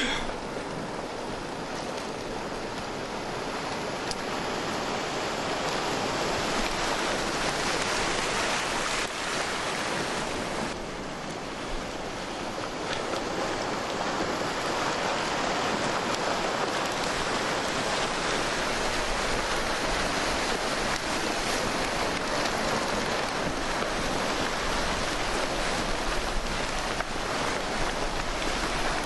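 Flash flood water rushing down a desert wash: a steady, dense rush of churning water that holds throughout, easing slightly for a moment partway through.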